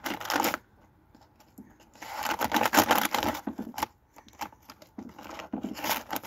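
Wild bird seed mix pouring in rattling bursts out of a plastic bag, with the bag crinkling: a short burst at the start, a longer pour about two seconds in, and another near the end.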